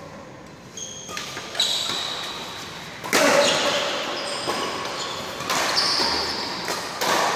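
Badminton rally: rackets striking the shuttlecock several times, sharp hits that echo in the hall, with short high squeaks of shoes on the court between them.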